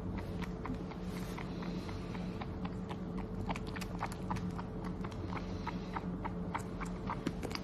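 Cat lapping milk: quick, light, wet clicks of the tongue, irregular but about four a second.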